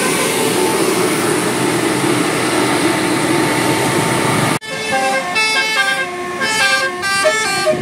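A loud, even rush of noise that cuts off abruptly a little past halfway, followed by a multi-tone 'telolet' bus horn playing a quick melody of short stepped notes.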